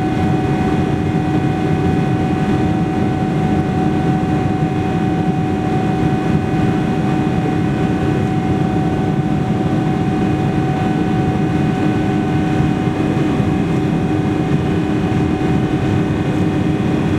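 A Boeing 777-300ER's GE90-115B turbofan engines heard from inside the cabin at climb power just after takeoff: a loud, steady rush of engine and air noise with several steady humming tones over it.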